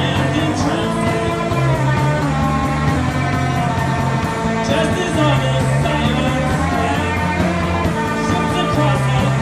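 A rock band playing a song in a live recording, with a bass line of long held notes under guitars and other instruments.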